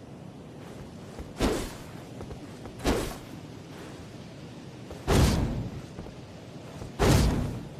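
Katana sword sound effect: four sharp swishes or slashes, one every one and a half to two seconds, each cutting in suddenly and fading over about half a second, the last two louder and longer.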